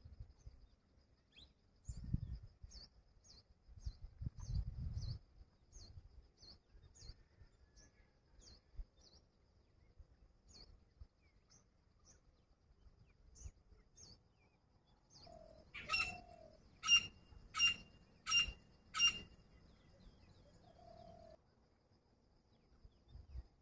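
Grey francolin calling: a run of five loud, sharp notes about two-thirds of the way in, evenly spaced a little under a second apart. Before them comes a string of faint, short high chirps.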